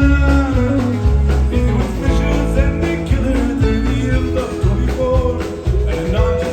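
Country band playing an upbeat cowboy ballad, with guitar over a steady, rhythmic bass line.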